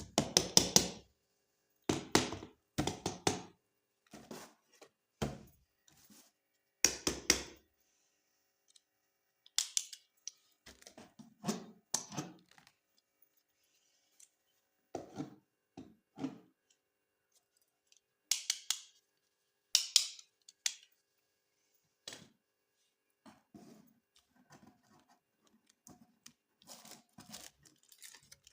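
Unboxing toys by hand: irregular clicks, knocks and rustles of plastic packaging and toy parts being handled and set down, with short silent gaps between them.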